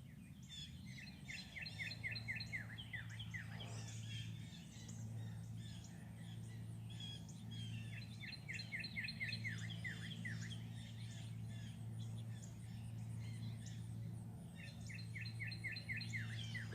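Songbird singing: a quick run of downward-slurred whistled notes, repeated three times a few seconds apart, over a steady low hum.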